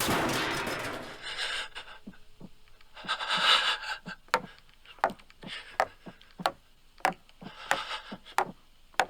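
A door being forced open with a loud crash, followed by more crashing and scraping. Then steady footsteps, about three every two seconds.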